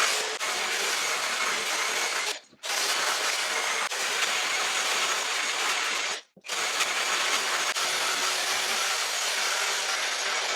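Angle grinder sanding an old wooden ceiling beam: a steady, harsh sanding noise that drops out briefly twice.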